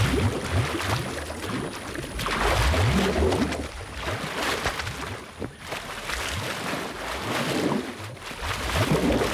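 Forest elephants splashing and churning shallow water and mud with their trunks, blowing down into it to stir up the mineral-rich mud. Water sloshes and surges in repeated swells every two or three seconds.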